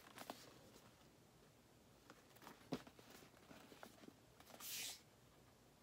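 Faint handling of a vinyl record box set as it is opened to take the records out: a few light taps and knocks, then a brief sliding rustle a little before the end.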